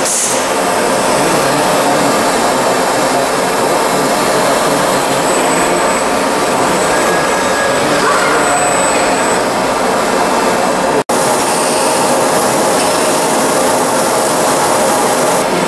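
Steady, loud whir and hiss of machinery in a robotic sanding cell, where the sander and its dust extraction run. The noise drops out for an instant about eleven seconds in.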